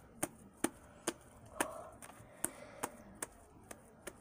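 Sharp, irregular clicks and pops from slime being squeezed and stretched by hand, about ten in four seconds.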